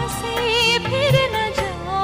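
A Hindi film song playing: a singer's voice holding a wavering melody over instrumental backing.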